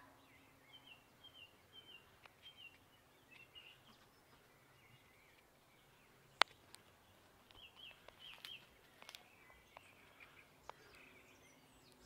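Tui singing faintly: runs of short, repeated chirping notes, with one sharp click about six and a half seconds in that is the loudest sound, and a few softer clicks after it.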